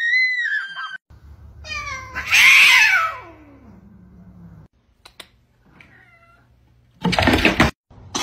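A cat yowls loudly, one long cry that slides down in pitch and trails off into a low growl over about three seconds. Near the end comes a short, loud noisy burst.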